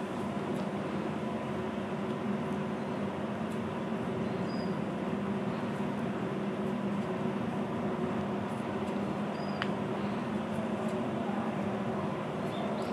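Steady machine-like hum over an even background noise, with a few faint high chirps and a single sharp click about nine and a half seconds in.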